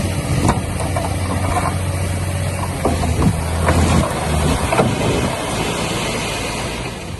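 Diesel engine of heavy construction machinery running with a steady low drone, over scattered clanks and knocks of metal and stone. The drone drops off about five seconds in.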